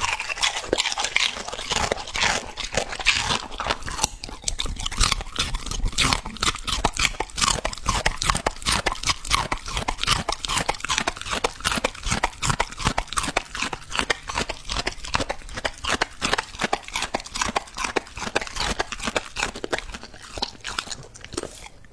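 Border collie eating wet curried food from a plate: a fast, steady run of wet chewing and lip-smacking clicks, several a second.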